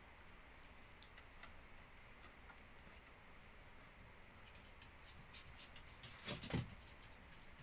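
Small dogs eating chicken taken from a hand: faint scattered clicks and nibbling sounds, with a short louder noise about six seconds in.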